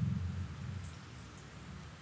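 Soft handling sounds of bread dough being kneaded and folded by hand on a wooden board, with a few faint ticks. A low hum fades out at the very start.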